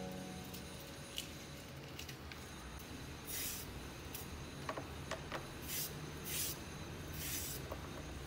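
Hand vegetable slicer shaving thin strips off a cucumber: about five short rasping strokes in the second half, over a steady low hum.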